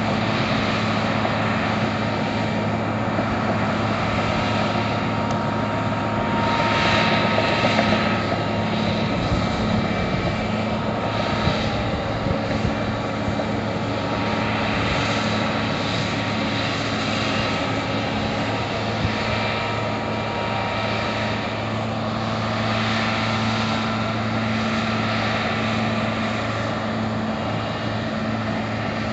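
Combine harvester's diesel engine running steadily as the machine drives through a flooded field, a constant low drone with a noisy mechanical rush over it.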